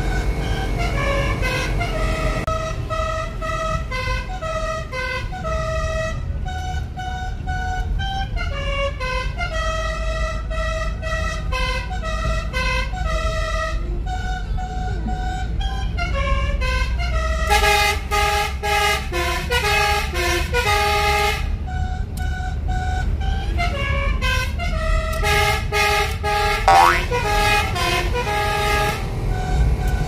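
Basuri 'telolet' multi-trumpet horn playing tunes note by note, heard from inside the car cabin over steady road rumble. The notes are louder and fuller in the second half, with a quick rising siren-like sweep near the end.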